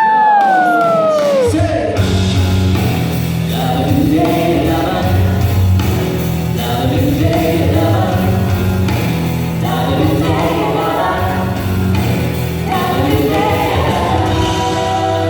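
Several voices singing in harmony over a backing band with a steady bass line, after a high held note slides down at the start.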